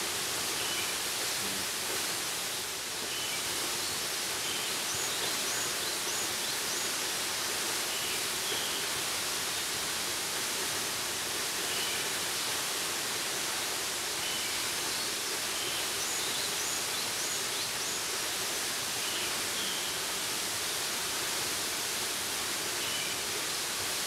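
A waterfall rushing steadily as it falls into its plunge pool, with faint high chirps now and then.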